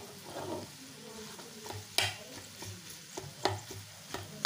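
Spatula stirring and mashing a chicken-and-potato filling in a frying pan while it sizzles, with sharp knocks of the spatula against the pan, the loudest about two seconds in and again about three and a half seconds in.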